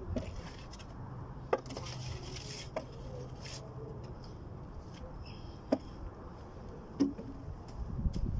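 A long-handled digging tool chopping into sand and packed ground: a few separate sharp knocks at irregular intervals. A faint low steady hum runs underneath from about one to four seconds in.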